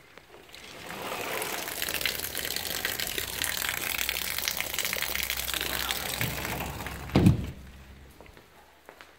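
Heavy rain pouring and splashing onto a flooded yard, a steady rush that swells up about a second in and stops just before seven seconds. It ends in a single loud thump.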